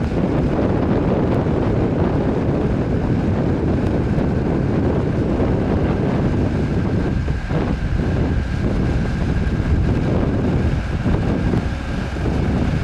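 Wind buffeting the microphone over a tractor engine running steadily.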